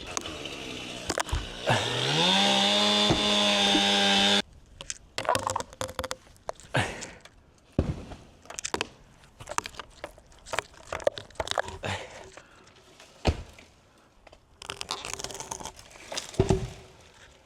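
Chainsaw revving up to full throttle about two seconds in and holding there, then cutting off suddenly. Scattered clicks and knocks follow.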